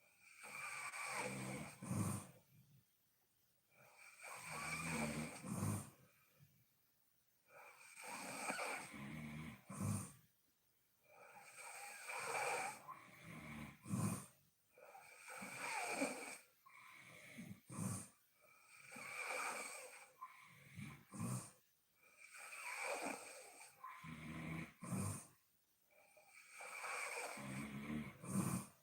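A sleeping woman snoring heavily and rhythmically, about eight breaths, one every three to four seconds. Each breath is a rough, raspy snore ending in a brief louder burst, with quiet pauses between breaths.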